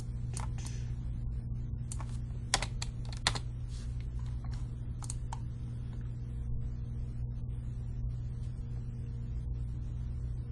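Scattered sharp clicks of a computer mouse and keyboard, about eight in the first five and a half seconds, then none. A steady low electrical hum runs underneath.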